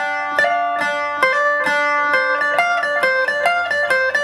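Two-string phin, the Isan plucked lute, picking a quick melody of single notes over a steady drone from its open string.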